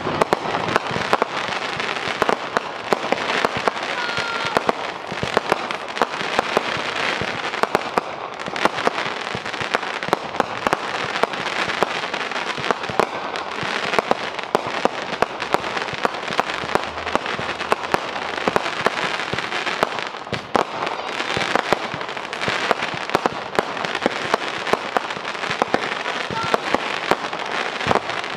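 Fireworks display: a dense, continuous crackle of many small pops from crackling stars, with sharper reports scattered all through.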